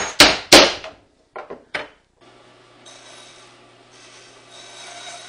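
Three sharp knocks, then a few lighter taps, as a glued wooden dowel is driven into its hole. After about two seconds a bandsaw runs with a steady hum and starts cutting wood about a second later, trimming off the end of the dowel.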